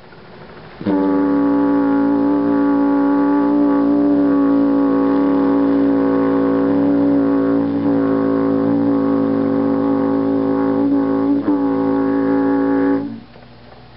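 HO scale diesel locomotive's sound-decoder air horn giving one long steady blast of about twelve seconds, starting about a second in and stopping sharply near the end.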